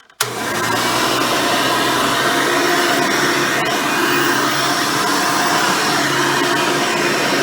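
Hoover Elite upright vacuum cleaner, with its original 7-amp motor and 7-blade fan, comes on abruptly and runs at a steady level.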